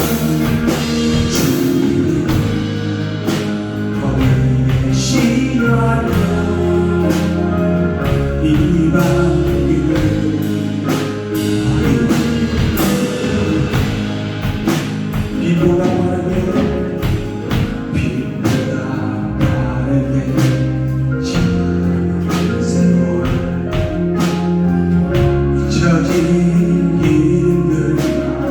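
Live church praise band playing a Korean worship song, with steady drum hits under sustained bass and chords, and singing.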